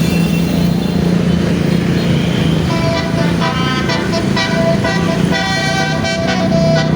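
Engine and road noise, then from about three seconds in a bus's basuri telolet musical horn plays a tune of short, stepped notes over the engine.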